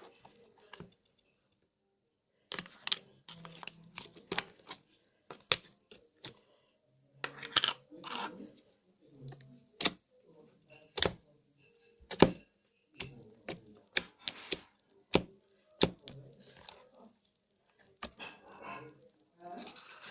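Slime being squeezed and poked by hand, giving irregular sharp clicks and sticky pops.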